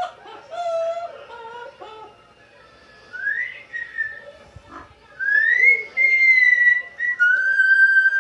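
Amazon parrot calling and whistling. Short gliding chatter comes first, then a rising whistle, a longer whistle that rises and is held, and a steady whistle near the end.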